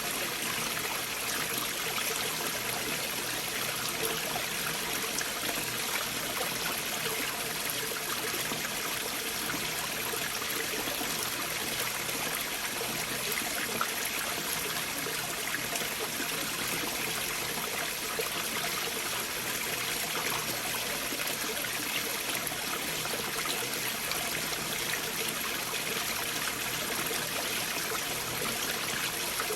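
Stream water flowing and trickling through gaps beneath large boulders, a steady, even rush that does not rise or fall.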